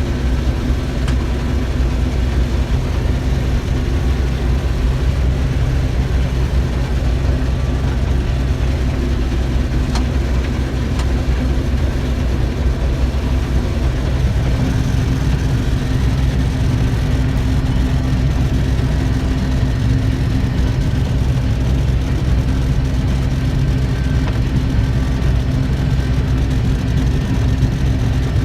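Case IH 1660 combine running steadily, its diesel engine and threshing machinery giving a constant low drone; the hum shifts a little about halfway through.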